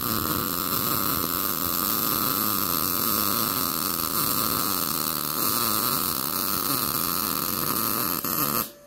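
MIG welding arc laying an uphill bead on thin-wall 1/16 inch mild steel square tubing, running steadily without a break and cutting off suddenly near the end as the weld stops.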